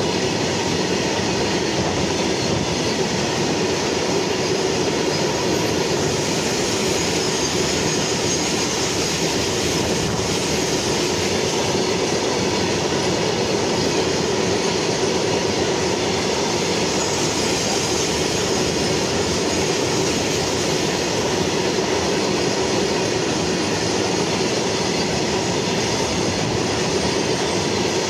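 Freight train of steel hopper wagons rolling past close by: a steady rumble and clatter of wheels on the rails.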